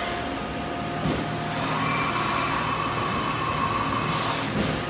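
Haas VF-3 YT vertical machining centre running, with coolant spraying inside its enclosure. A steady whine steps up in pitch about a second and a half in, and there is a brief burst of hiss near the end.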